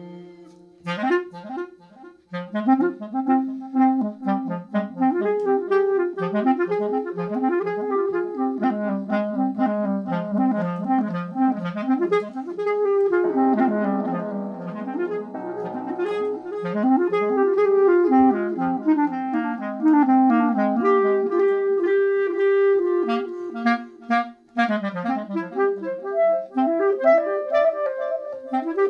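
Clarinet playing fast runs of short, upward-sliding notes over other looped clarinet layers sounding at the same time, with delay. A hazier, noisier passage comes about halfway through, and the sound briefly drops out twice.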